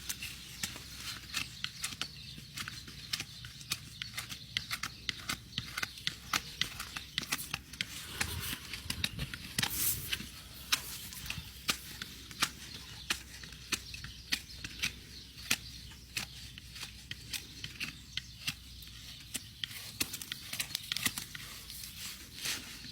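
Hoof trimming on an overgrown draft horse's front hoof: irregular sharp clicks and crackles, several a second, as the trimming tools cut through the hoof horn, with a louder stretch about eight to ten seconds in.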